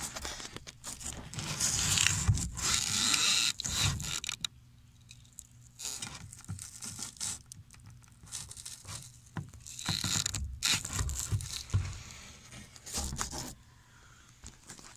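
Irregular scraping and rustling with scattered clicks as a phone and arm rub against the foam blocks and fiberglass inside a sailboat hull. It is loudest in the first few seconds and again late on, with quieter stretches between.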